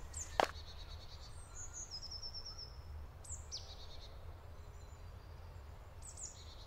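Small woodland songbirds singing: scattered high chirps and a short descending trill, over a faint steady low rumble. A single step or knock sounds just after the start.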